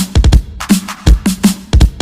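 Bass-boosted electronic dance music: a fast, syncopated beat of heavy kick and bass hits with sharp snare strikes, and a bass note that drops in pitch after each hit.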